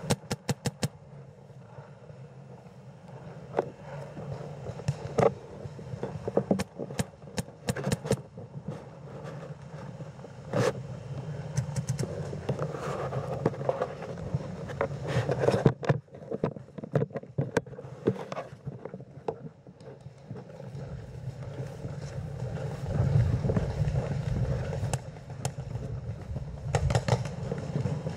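Paintball markers firing: a quick string of shots close by right at the start, then scattered single shots and short volleys through the rest, over a low steady rumble.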